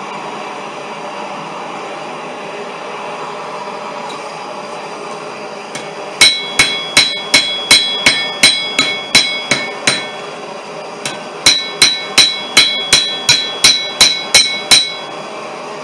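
Hammer blows ringing on a steel anvil: two runs of about a dozen quick strikes, about three a second, with a short pause between them. A steady rushing noise lies underneath, and is heard alone for the first several seconds.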